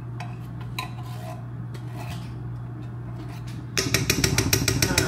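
A metal utensil clinking fast against cookware, about ten clinks a second, starting near the end, as when food is stirred or mixed in a pot. Before that, only a few light taps over a steady low hum.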